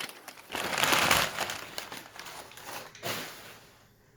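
Paper wrapping crinkling and rustling as an item is unwrapped by hand. The loudest rustle comes about a second in, with a shorter one near three seconds, then it dies away.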